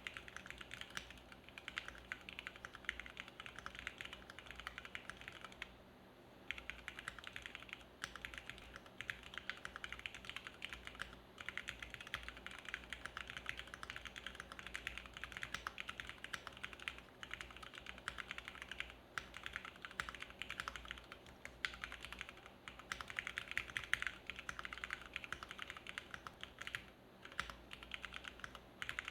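Continuous typing on a JRIS65 mechanical keyboard with stock Cherry MX Black Hyperglide linear switches: a dense, rapid run of keystroke clacks, with a brief pause about six seconds in and another near the end.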